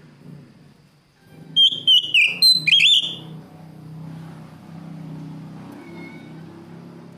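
Oriental magpie-robin singing a short, loud burst of five or six sliding whistled notes, starting about a second and a half in and lasting about a second and a half, with a few fainter notes near the end.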